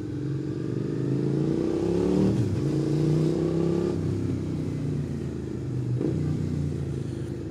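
Suzuki SV650's 645 cc V-twin engine pulling under acceleration while riding. The engine note rises, breaks briefly about two seconds in as the next gear goes in, rises again, then settles to a steadier cruise from about four seconds in.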